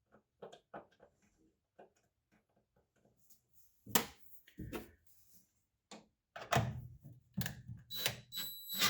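Small metallic clicks and knocks of a bolt and washer being handled and fitted into a hood-shock bracket, with a few louder knocks in the second half. A high steady whine starts near the end.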